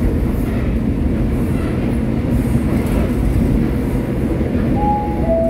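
A converted resistor-control electric multiple unit on Seoul Subway Line 1 running, heard from inside the car as a steady, loud rumble. Near the end come two brief tones, the second a little lower than the first.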